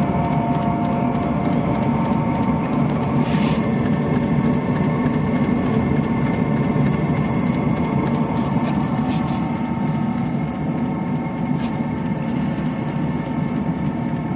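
Eberspacher diesel night heater running steadily, with a low combustion roar and fan whine through its silenced exhaust and air intake, and a fast regular ticking over it.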